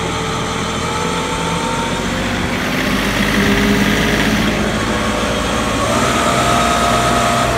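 80-horsepower John Deere tractor engine running steadily, turning a PTO-driven whole-house generator; about six seconds in its pitch steps up as the engine speeds up.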